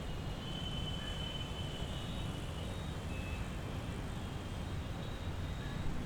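Street ambience: a steady low rumble of road traffic, with thin high tones faintly drifting in and out.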